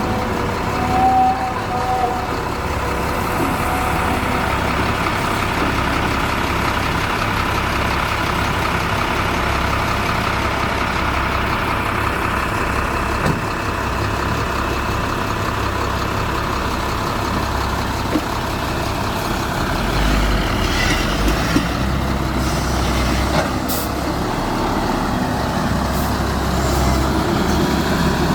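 Diesel engines of a tracked excavator and a truck working, a steady heavy running sound; the low rumble grows heavier about two-thirds of the way through, with a few sharp knocks near the end.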